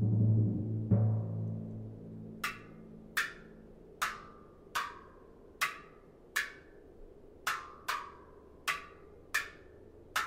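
A low timpani note rings and fades, with one more drum stroke about a second in; then about ten sharp, ringing wooden clicks follow one by one, roughly one a second, as the handle ends of the timpani mallets strike the rims of the drums.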